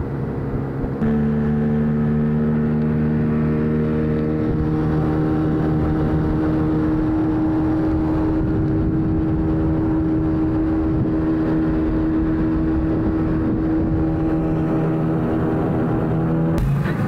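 Outboard motor of a small aluminium fishing boat running under way at steady throttle, a constant drone that steps up louder about a second in.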